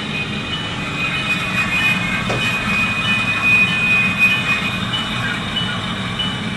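Tsunami sound decoder in an HO-scale BNSF C44-9W model locomotive playing its brake-squeal effect. A high, steady squeal sounds over the GE FDL-16 diesel engine sound through the small onboard speaker, and the squeal ends about four and a half seconds in.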